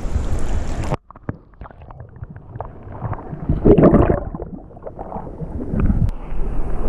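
Wind buffeting the microphone for about the first second, cut off suddenly. Then water sloshing and scattered knocks around a canoe, loudest about halfway through.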